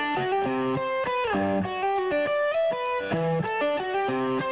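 Electric guitar picking a melodic riff of ringing notes that step up and down, over light, steady hi-hat ticks keeping time.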